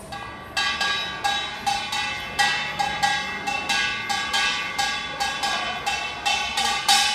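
Kkwaenggwari, a small hand-held brass gong, struck on its own in a quick, steady rhythm of two to three bright ringing hits a second, starting about half a second in.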